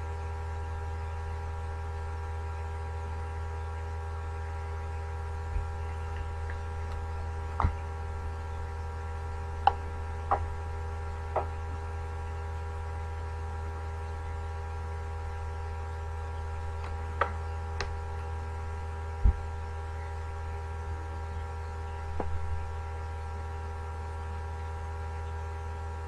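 Steady electrical hum over the video call's audio, with about nine short clicks and knocks scattered through it.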